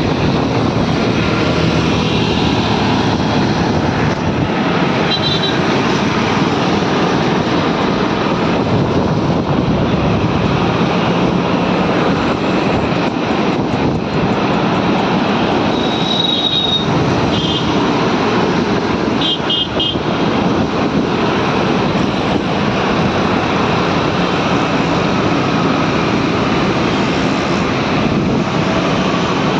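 Steady loud road and wind noise from travelling through city traffic in a moving vehicle, with a few short high-pitched beeps: one about five seconds in and a cluster around the middle.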